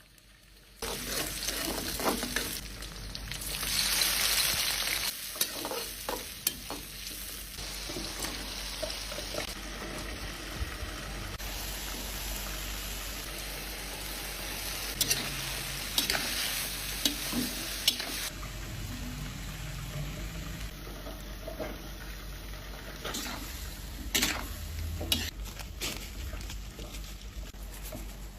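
Shrimp and broccoli sizzling as they are stir-fried in a pan, with a utensil scraping and clicking against the pan. The sizzle starts about a second in and briefly grows louder a few seconds later.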